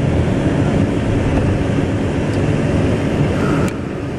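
Steady road and engine rumble heard inside a moving vehicle's cabin, a little quieter after a brief click near the end.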